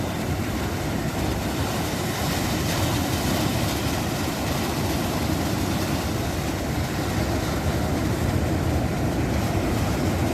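Steady low rumble of wind buffeting the microphone, mixed with waves breaking in the surf.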